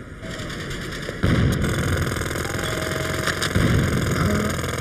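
Loud roadworks machinery running, a continuous fast mechanical rattle with engine noise that jumps louder about a second in and again near the end.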